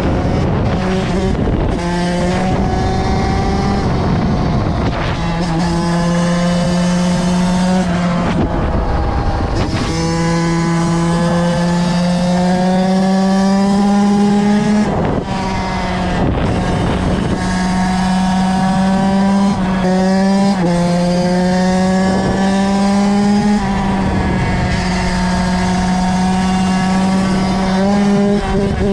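Kawasaki KX85 two-stroke dirt bike engine held high in the revs under hard acceleration. Its pitch climbs slowly, then drops at each of several gear changes before climbing again. A loud rushing noise runs underneath.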